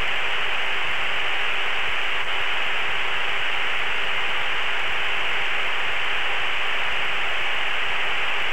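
Steady radio hiss on the aircraft's radio channel between transmissions: even static with a faint steady hum underneath.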